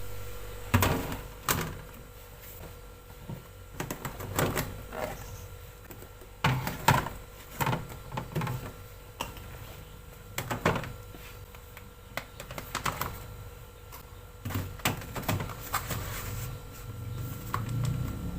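Food storage containers being handled and set down: irregular clicks and knocks, a dozen or more, over a steady hum.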